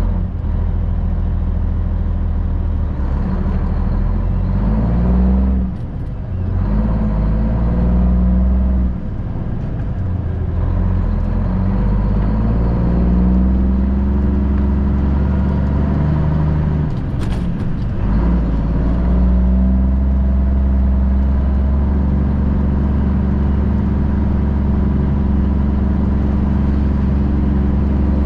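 Semi truck's Cummins ISM diesel engine running, its engine speed rising and falling, with a few brief dips.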